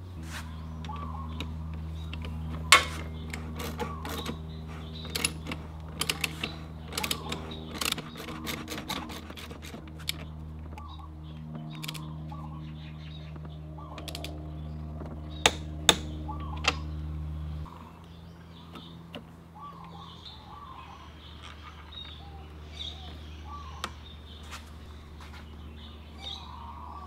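Hand tools working on a scooter's front wheel: a socket ratchet clicking and metal clinks, then a torque wrench tightening the axle nut, with two sharp clicks close together about two-thirds of the way through. A steady low hum runs underneath and stops abruptly at about the same point, and birds chirp in the background.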